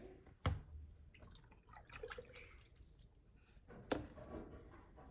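Two sharp taps, about three and a half seconds apart, over faint room noise, with a brief faint pitched sound like a voice about two seconds in.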